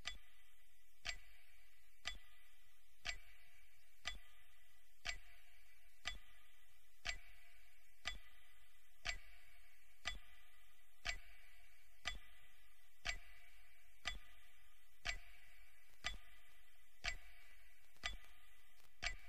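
Clock ticking steadily, once a second, each tick sharp with a short ring after it: the tick carried on air to mark a radio minute of silence.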